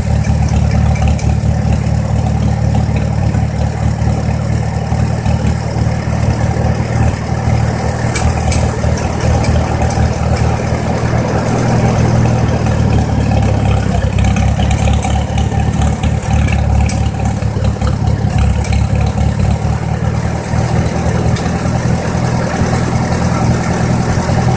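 1953 Farmall Super H's four-cylinder gasoline engine idling steadily with its freshly rebuilt carburetor, running about as smooth as the owner can get it.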